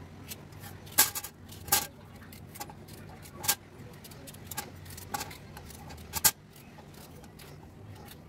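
Kitchen knife peeling pumpkin pieces over a stainless-steel cutting board: scattered sharp metallic clicks and taps as the knife and pumpkin pieces hit the board, the loudest about a second in, over a low steady hum.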